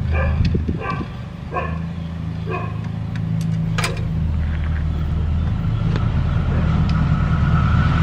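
Steady low engine hum at a railway level crossing, slowly growing louder as a KRL electric commuter train approaches, with a rising whine in the second half. In the first few seconds a short sound repeats about every 0.8 s, and there is one sharp click near the middle.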